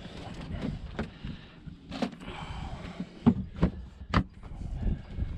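Hard plastic Coleman cooler lid being closed and pressed down: a few sharp knocks and thuds, the loudest about three seconds in, over a low wind rumble on the microphone.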